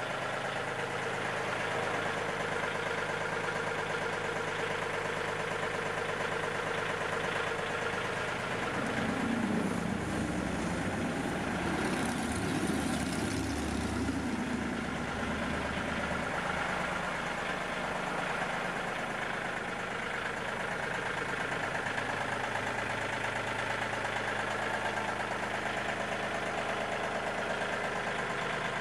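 Yanmar CT226 crawler tractor's diesel engine idling steadily, with a deeper, heavier note for several seconds in the middle.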